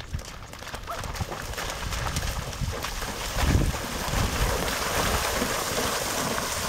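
A Rocky Mountain Horse and dogs splashing through a shallow pond, the splashing growing louder as they wade further in. Wind rumbles on the microphone underneath.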